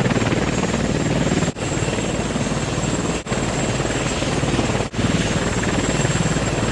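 Helicopter rotor and engine noise, steady and loud, with a low beating pulse. It breaks off for an instant three times, evenly spaced about every one and a half to two seconds.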